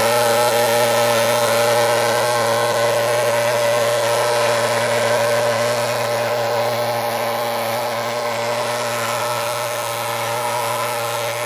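Portable thermal fogging machine running with a steady engine drone while it blows out insecticide fog for mosquito control, growing slightly fainter over the stretch.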